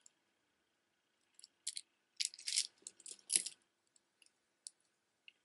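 Wooden beads of a wrap bracelet clicking and rattling against each other as it is handled and set aside. There is a cluster of clacks between about one and a half and three and a half seconds in, then a few faint ticks.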